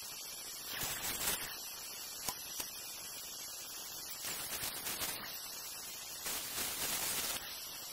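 Steady static-like hiss with a few brief louder rushes of noise; no saw motor is heard running.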